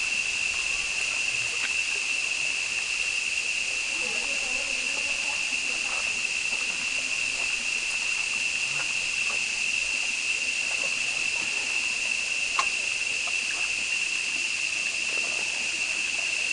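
Insects droning with one steady high-pitched note that never breaks, over a soft even hiss.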